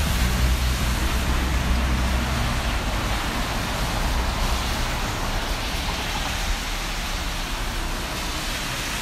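City traffic on wet roads: a steady rushing hiss, with a vehicle's engine hum close by for the first few seconds, then fading.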